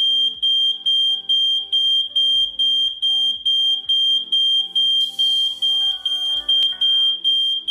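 SFL-908 photoelectric GSM smoke detector in full alarm: a loud, high-pitched beep repeating a little over twice a second, set off by smoke reaching its alarm concentration.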